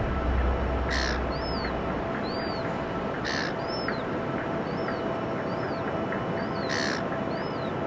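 Birds calling over a steady wash of surf: a harsh, raspy call three times and many short arched chirps, with a low rumble over the first two seconds.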